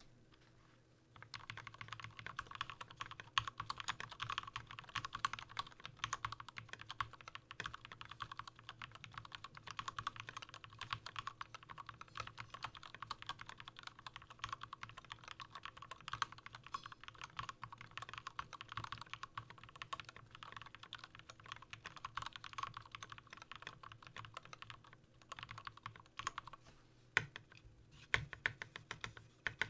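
Continuous fast typing on a heavy aluminium-and-brass MonstarGear Ninja XO V2 TKL mechanical keyboard with Zeal Turquoise Tealios linear switches and TaiHao PBT doubleshot keycaps: a dense run of keystroke clicks starting about a second in, with a brief pause near the end.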